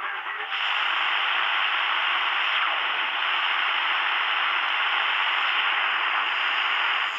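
Shortwave static from a Sony ICF-SW10 analog receiver tuned between stations: a steady hiss that grows louder about half a second in.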